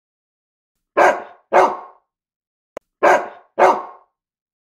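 A dog barking: two pairs of barks, each pair about half a second apart, the second pair about two seconds after the first, with a faint click between them.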